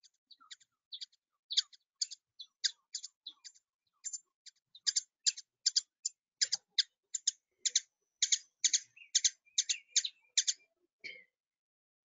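Ruby-throated hummingbird calling: a long series of short, high chip notes, scattered at first and then coming evenly about two to three a second, stopping shortly before the end.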